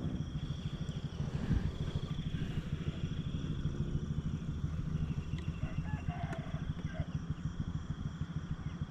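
A small engine running steadily with a rapid, even low beat. A few short bird calls come in about five to seven seconds in.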